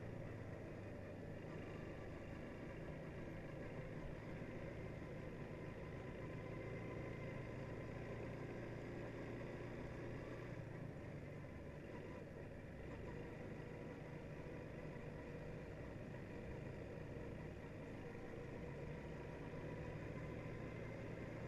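Quad bike engine running steadily while riding along a road.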